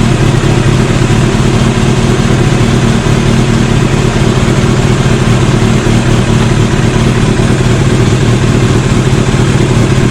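1988 Kawasaki ZX-10B Tomcat's inline-four engine idling steadily once warmed up.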